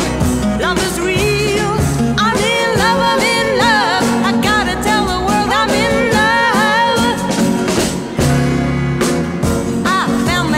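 A 1965 pop-soul record: a woman singing with a wavering vibrato over a band with drums, bass and guitar.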